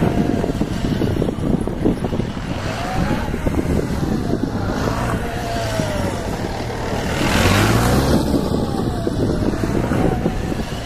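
Yamaha XJR1300's inline-four engine revving up and down as the motorcycle is ridden through tight turns around cones, with the loudest climb in revs about seven seconds in.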